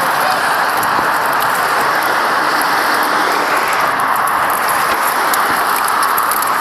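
Steady rushing water, an even hiss with small scattered ticks on top.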